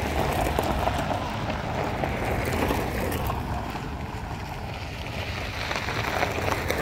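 Police cars driving past on a gravel drive, tyres crunching on the gravel under engine noise, with wind rumbling on the microphone. A second car approaches near the end.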